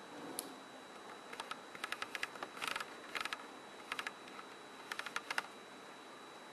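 Irregular clusters of light, quick clicks, densest about two and a half seconds in, over a faint steady high-pitched whine and hiss.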